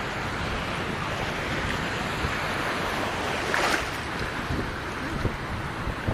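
Water splashing and sloshing, with wind rumbling on the microphone; a brief louder rush of water about three and a half seconds in.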